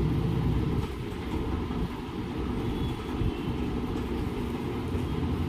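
A steady low rumble with a faint hiss above it, dipping slightly about a second in.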